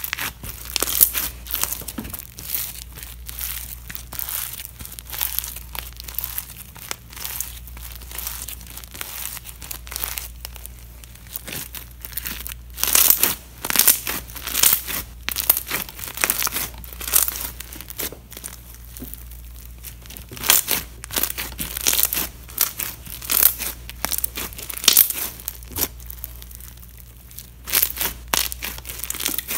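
Pink foam-bead slime being squeezed, kneaded and pulled apart by hand, making a crunchy, irregular crackling in clusters of squeezes.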